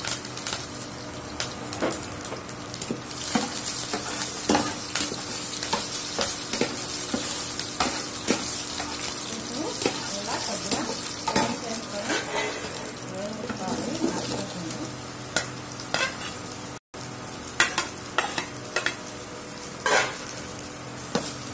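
Mustard seeds, curry leaves and garlic sizzling in hot oil in a nonstick pan, a steady hiss broken by many sharp pops and crackles. After a brief break near the end, chopped raw banana pieces are in the pan and the sizzling goes on.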